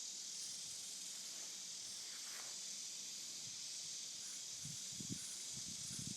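Steady high-pitched insect chorus, an even hiss with a faint pulsing at the top.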